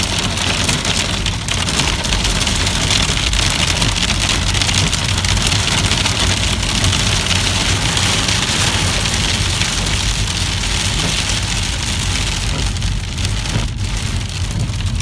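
Hail drumming hard on a car's roof and windscreen in a dense, steady clatter, heard from inside the cabin of the moving car, with the car's low rumble underneath.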